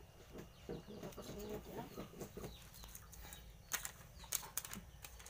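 Faint handling sounds of a spoon working dry flour in a steel mixing bowl, with small scrapes and clicks and a run of sharper taps about four seconds in. A few short pitched calls sound in the background.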